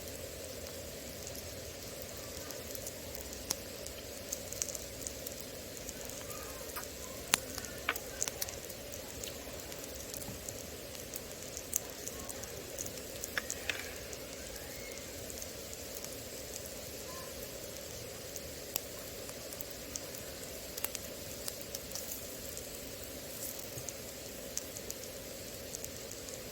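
Food sizzling as it fries in a pan: a steady hiss with scattered sharp pops and crackles, a few louder pops about a third and half of the way through.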